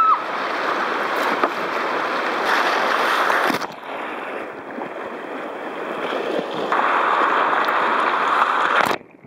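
Whitewater rapids rushing around a kayak running down a river rapid, with spray splashing over the boat. The rush dips a few seconds in, grows louder again after the middle, and falls away suddenly just before the end.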